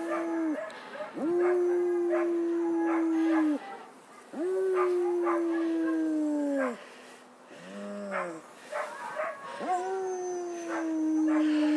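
A Rhodesian Ridgeback–Boxer mix dog howling: a series of long howls, each held on one steady pitch for two to three seconds and sagging at the end, with a shorter, lower howl in between.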